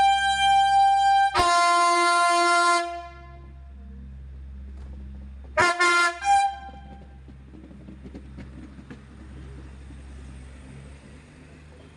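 Train air horn sounding one long blast that shifts into a two-note chord partway through and fades out about three seconds in, followed by a few short toots about six seconds in. A low steady drone runs underneath.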